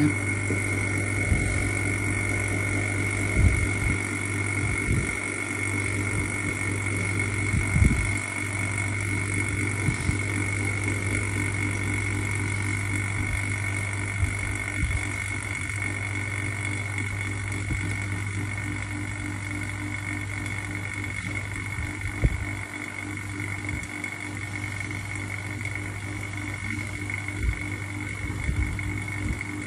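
Y106 OCA/LCD vacuum laminating press running a pressing cycle, its vacuum pump humming steadily with a constant high whine on top. A few soft knocks come and go.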